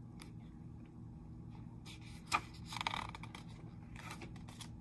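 A picture book's paper page being turned by hand: a brief rustle and scrape about two to three seconds in, with a few soft taps, over a faint steady hum.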